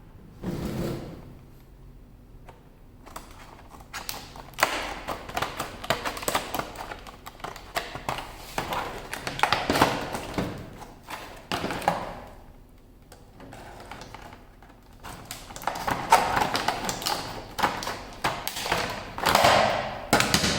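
Packaging of a small boxed drill bit set being torn and cut open by hand: crackling, rustling spells in irregular bursts with short pauses, and a few light knocks.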